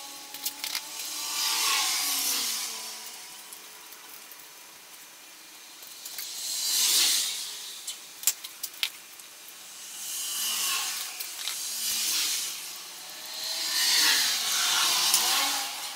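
Painter's masking tape pulled off the roll in about five long, scraping strips, with short crinkles and clicks of plastic sheeting and tape between them.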